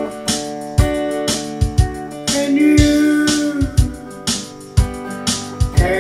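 Instrumental break in a country song: a hollow-body archtop guitar strummed in a steady rhythm of about two strokes a second, with one long held melody note that bends in the middle.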